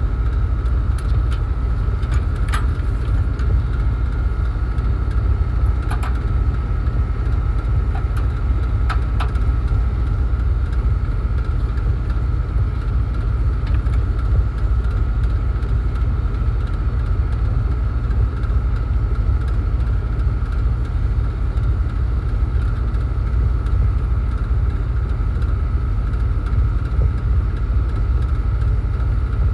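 Steady machinery running: a constant low rumble with an unchanging high whine, and a few sharp clicks in the first ten seconds.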